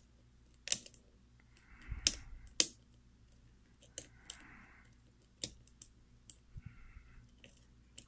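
Single-pin picking of a Falcon lock cylinder with a Peterson Gem hook pick under tension: a scattering of small, sharp metallic clicks at irregular intervals as the pick works the pin stacks.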